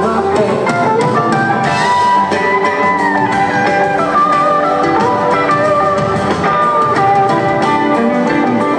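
A live rock band jams instrumentally: an electric guitar lead plays sustained notes that slide and bend, over strummed guitar and a drum kit.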